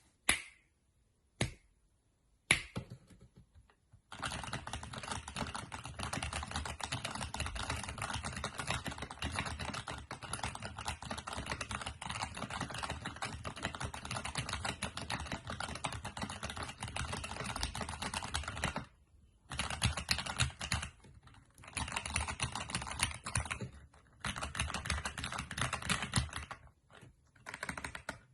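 Mechanical keyboard with tactile switches being typed on, its keystrokes sounding sharp and clicky like clicky switches. A few single keystrokes come first, then fast continuous typing for about fifteen seconds, a brief pause, and more bursts of typing.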